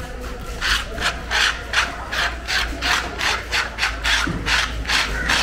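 Rapid, even scraping strokes across a wet wooden chopping block, about three a second, starting just under a second in.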